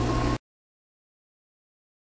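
The last spoken word over a steady mechanical hum, cut off abruptly less than half a second in, then dead digital silence.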